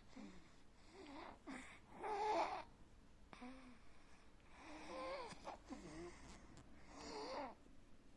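Snoring in sleep: a run of noisy breaths, several with a wavering, whistling pitch. The breaths come every two to three seconds, and the loudest is about two seconds in.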